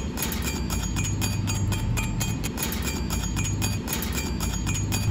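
Crackling of a stick-welding arc from an E6010 electrode running the root pass of a pipe joint, with a steady low hum underneath.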